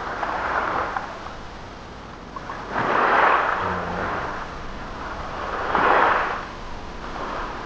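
Small waves washing up on a pebble shore: a hiss that swells and fades three times, about every three seconds.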